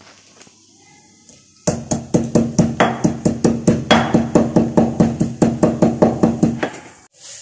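Marble pestle pounding whole spices in a marble mortar, crushing them into a masala: rapid, even knocks, about five a second, starting a little under two seconds in and stopping near the end.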